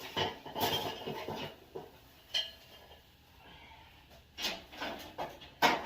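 Kitchen utensils and dishware clattering and clinking as they are handled, a run of sharp knocks with short pauses between them, the loudest near the end.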